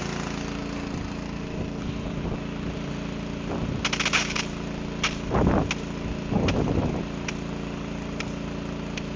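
Small engine of a truck-mounted brine sprayer's pump running steadily, warm and freshly restarted, with a few sharp clicks scattered through, a quick cluster of them about four seconds in.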